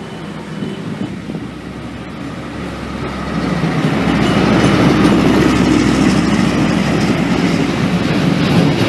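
Electric commuter train running on the rails, its rumble building over the first few seconds as it gathers speed, then running steadily and loudly.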